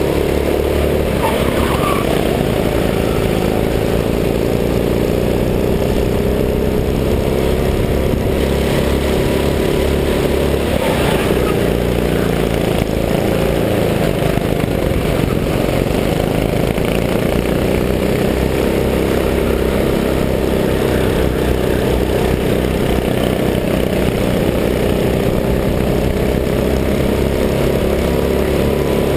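Go-kart engine running hard on a lap, heard on board from the driver's seat, its revs rising and falling slightly at a steady loudness.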